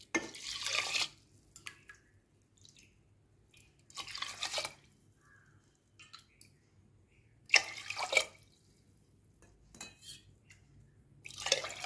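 Water poured from a steel tumbler into a pressure cooker onto rice and moong dal, in four separate pours of about a second each.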